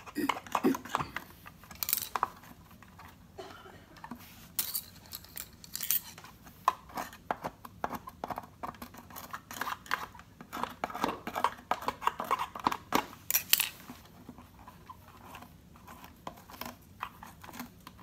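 Scissors snipping and fingers pulling tangled hair off a vacuum cleaner's brush roll: an irregular run of clicks, snips and scratches against the plastic floor head.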